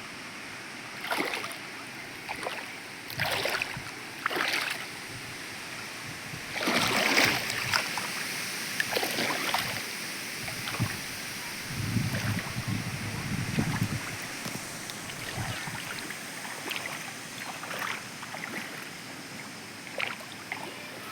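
Water splashing in irregular bursts every second or two over a steady hiss, like small waves lapping, with a low wind rumble on the microphone for a couple of seconds about twelve seconds in.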